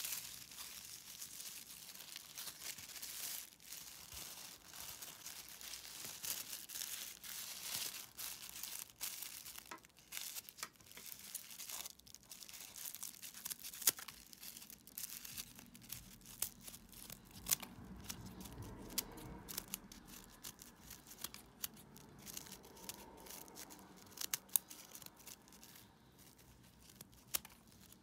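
Scissors snipping through a folded stack of tissue paper, many short crisp cuts one after another, with the paper crinkling as it is handled.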